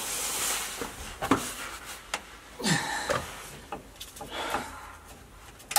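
A breaker bar on a 12-point socket being heaved against a stuck driveshaft-to-rear-differential flange bolt: faint clicks and rubbing from the tool. The bolt gives way a little without any loud crack.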